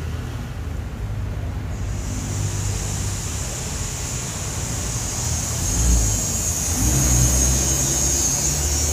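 A motor vehicle engine running, a low rumble that swells and rises in pitch about six to seven seconds in. A steady high hiss runs alongside from about two seconds in.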